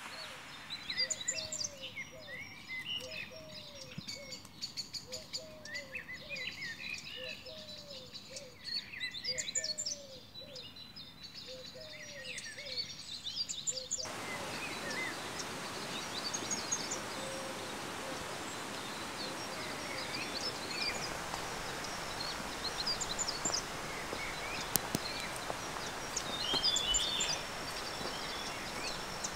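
Forest birds singing and chirping, with many short high calls. Through the first half a lower, short, up-and-down call repeats about once a second. About halfway it gives way to a steady outdoor hiss with scattered chirps.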